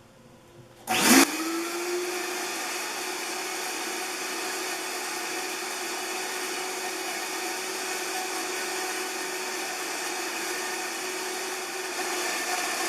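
Blender switched on about a second in, with a brief surge as the motor spins up, then running steadily on low speed, blending the liquid dressing ingredients. It gets a little louder near the end.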